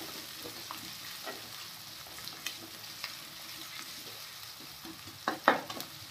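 Sliced onions and green chillies sizzling in hot oil in a steel kadhai on high flame, while a spatula stirs them, scraping and clicking against the pan. There are a few louder scrapes about five seconds in.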